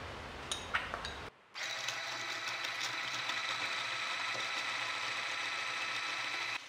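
A few clicks, then an AGARO Grand hand blender's motor runs steadily with a whine, driving its whisk attachment to whip fresh cream. It cuts off abruptly near the end.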